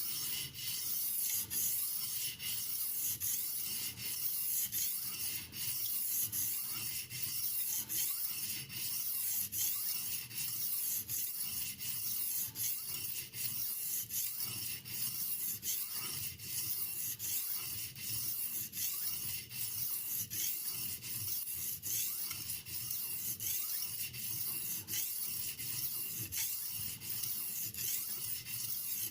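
A steel knife blade being stroked on a soaked soft aluminium oxide 6000-grit whetstone (Haidu HCJ-S), in a steady rhythm of scraping strokes.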